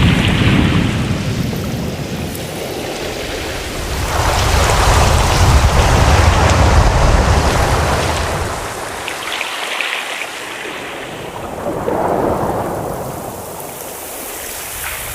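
Ocean surf: waves breaking and washing in, swelling and falling back every few seconds with a deep rumble beneath, the biggest surge in the middle and a smaller one near the end.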